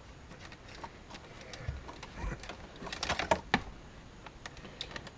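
Cables being fed through a car's dash frame: scattered light clicks and rustling, with a cluster of sharper clicks about three seconds in.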